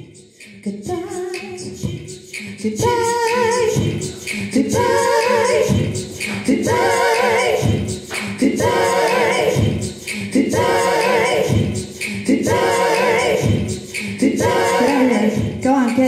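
A woman's wordless a cappella singing: after a brief hush, sustained vocal notes with vibrato start about a second in and repeat in a regular pattern about every two seconds, layered as in a vocal loop.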